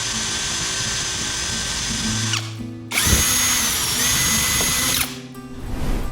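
Electric power tool motor whining at high speed in two runs, the first about two and a half seconds, then a short pause, then a second run of about two seconds whose whine dips briefly in pitch midway. Soft background music plays underneath.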